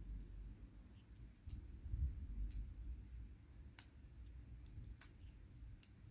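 Small, scattered metallic clicks from handling a padlock's small parts while the core is worked out with a shim, over low thumps of handling.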